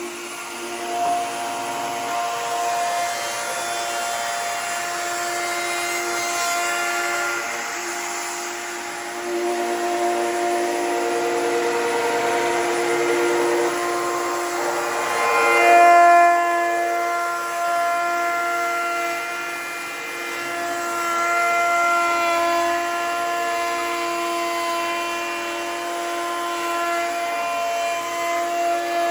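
Handheld electric power tool working a hardwood hickory tabletop, its motor running with a steady whine; the pitch shifts and it briefly gets louder about halfway through.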